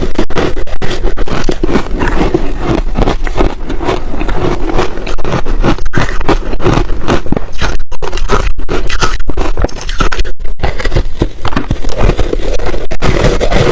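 Close-miked crunching of refrozen ice being bitten and chewed: a dense run of crackling crunches with two brief pauses.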